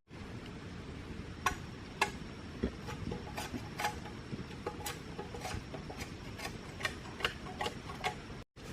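A series of light, sharp taps or clicks, irregular but about two a second, over a low steady background rumble.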